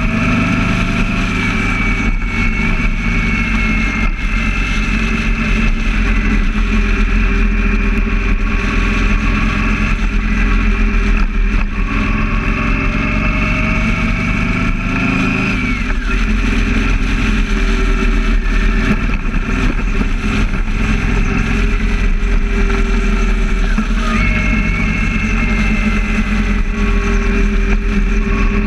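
Motorcycle engine running at highway speed under heavy wind rumble, its note slowly rising and falling with the throttle and shifting about halfway through and again near the end.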